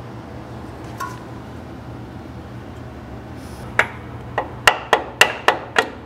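Hammer striking the steel truck frame near the steering box, a quick series of sharp, ringing metallic taps at about three to four a second starting in the second half. Under it runs the steady low hum of the shop dehumidifier.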